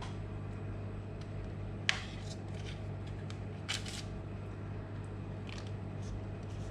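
Silicone pastry brush dabbing water along the rim of puff pastry on baking paper, with a few light clicks and taps, over a steady low hum.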